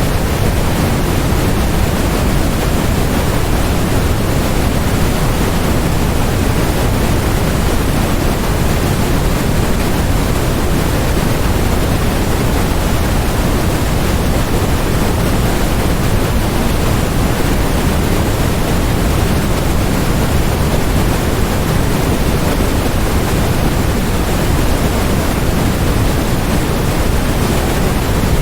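Steady synthetic noise played as a white-noise track: an even, unbroken hiss that never changes, fuller in its low rumble than at the top.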